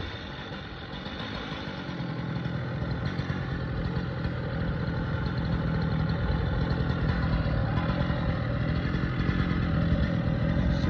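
An engine running steadily, getting louder over the first few seconds, with some clatter.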